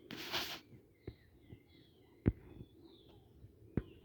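Birds chirping faintly in short, bending calls, with three sharp taps, the loudest about two seconds in, and a brief hiss at the start.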